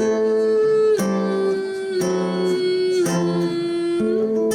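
Live acoustic music without words: guitar playing chords that change about once a second, under a held melody line that bends in pitch now and then.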